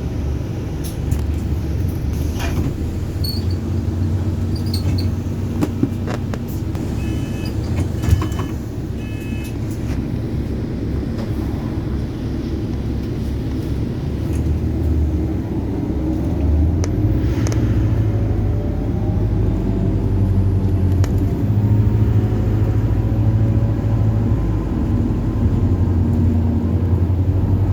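Bus engine and drivetrain heard from on board: a steady low drone with scattered clicks and rattles, and a few short beeps about seven to nine seconds in. From about sixteen seconds the bus pulls away, with rising whines that get louder toward the end.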